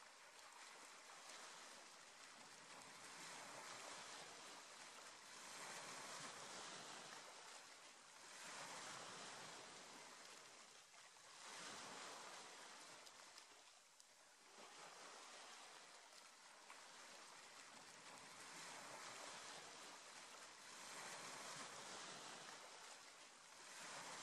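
Faint small sea waves washing over a stony shore, each swell rising and falling back every two to three seconds.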